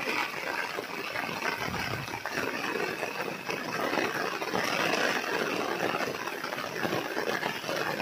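Heavy rain falling on a cotton field: a steady, even hiss.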